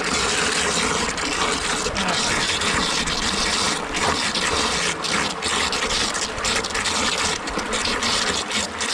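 Water gushing steadily into a concrete stock water trough through a float valve that is held fully open by hand, churning the water in the trough.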